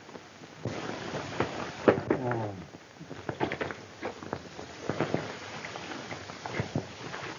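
Horse hooves knocking irregularly on hard ground, with one falling, pitched call about two seconds in.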